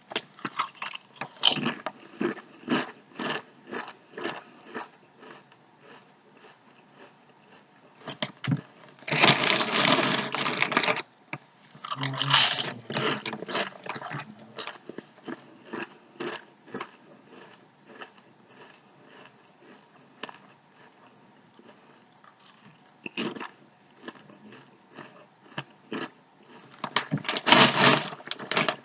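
SunChips multigrain chips being chewed close to the microphone: a run of crisp crunches, about two a second, then sparser ones, with longer, denser stretches of crackling around the middle and near the end.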